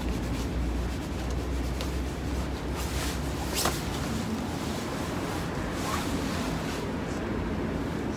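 Neoprene wetsuit being smoothed out and handled on a workbench: soft rubbing with a few brief clicks, the sharpest about three and a half seconds in, over a steady background hiss.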